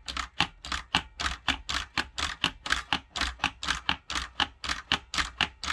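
3D-printed Enigma replica's rotor-stepping mechanism clicking as the rotors are stepped in quick succession, about five sharp clicks a second over a low steady hum. It is being run to see whether it misses steps, which its maker puts down to the stepping pawls being dropped only by gravity.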